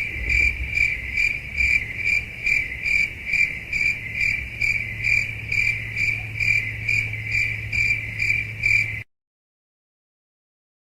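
Cricket chirping sound effect: a high chirp repeating in a steady rhythm, about two a second, over a low hum. It cuts off suddenly about nine seconds in.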